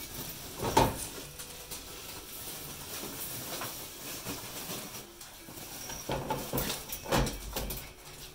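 Australian Shepherd puppies scuffling and playing on a wood floor, with scattered sharp knocks and bumps: the loudest comes about a second in, and several more come near the end.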